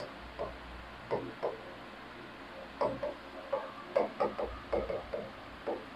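Pen writing on a board: a string of short, faint scratches and taps, one stroke after another with small gaps.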